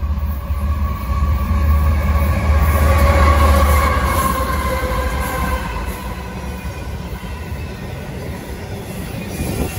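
CSX intermodal freight train passing close by: its lead diesel locomotives grow loud with a heavy engine rumble and whine, peaking about three seconds in, and the whine dips slightly in pitch as they go past. The rumble then eases as the container cars roll by on the rails.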